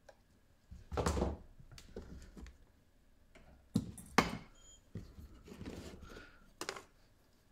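A few separate knocks and clatters of hard parts being handled on a workbench, loudest about a second in and twice around the middle, with a short scrape just before the last knock.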